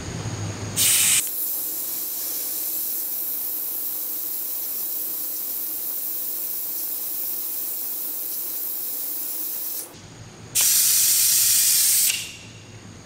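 Compressed-air vacuum brake bleeder hissing as its air exhausts while it sucks the old brake fluid out of the master cylinder reservoir. A short louder blast comes about a second in, then a steady hiss for about nine seconds, a brief break, and a louder hiss for about a second and a half near the end.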